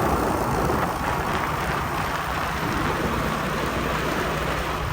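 Steady rushing wind noise over the microphone, with a vehicle's engine and road noise underneath while moving along a road.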